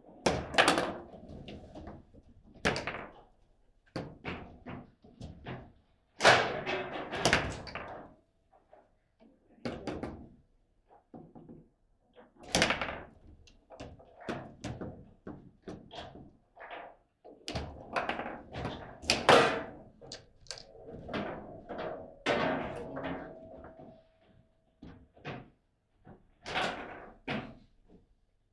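Table football in play: the hard ball is struck by the rod figures and cracks off the table walls, with the rods knocking at the ends of their travel. The result is irregular sharp knocks and thunks, some in quick flurries.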